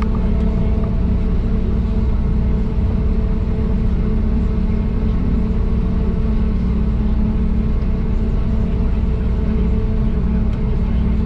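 John Deere 8400i self-propelled forage harvester running steadily, a constant low drone with a few steady hums above it.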